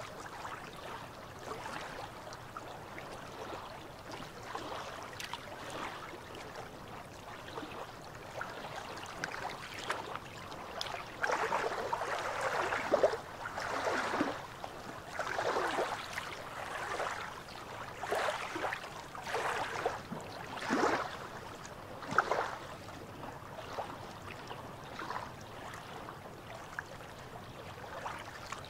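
Small waves lapping and sloshing against shoreline rocks, in irregular splashes that grow louder and busier about a third of the way in, then ease off near the end.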